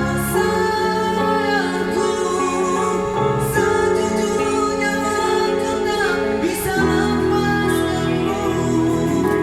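A band playing a slow Malay pop ballad live, with a singer over held chords that change every few seconds.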